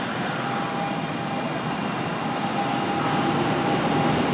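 Hanshin 1000 series electric train pulling out, a steady rumble of motors and wheels that slowly grows louder, with a thin steady high tone running through it.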